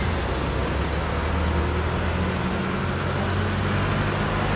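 A truck engine running in street traffic: a low, steady engine hum over road noise, shifting a little in pitch as it goes.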